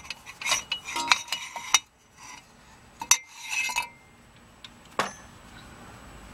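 Metal clinks and taps from the inner tie rod tool and joint knocking against the steering rack while the inner tie rod is worked loose: a quick cluster of sharp clinks in the first two seconds, then a single clink about three seconds in and another about five seconds in.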